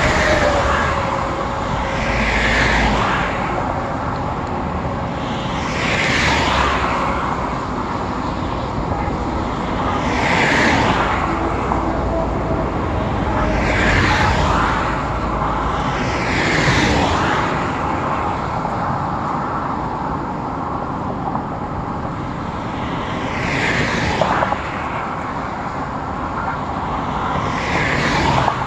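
Expressway traffic: vehicles passing at speed one after another, each a whoosh of tyre and wind noise that swells and fades, about eight passes over a steady drone of more distant traffic.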